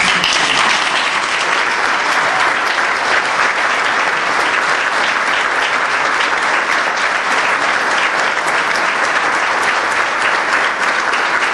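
A crowd applauding: dense, steady clapping that starts abruptly and keeps going without letting up.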